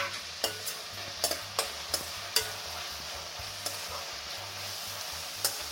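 Onions, garlic, ginger and green chilies sizzling in coconut oil in a kadai, with a spatula stirring and clicking against the pan several times, mostly in the first couple of seconds.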